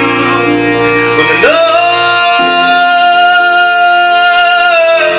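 A man singing live to his own harp: plucked harp notes, then about a second and a half in his voice slides up into one long wordless note, held for about three and a half seconds and dipping slightly as it ends.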